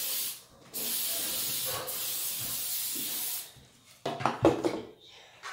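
Aerosol spray hissing in long steady blasts: one stops just after the start, then another runs for nearly three seconds. About four seconds in comes a short, loud breathy gasp.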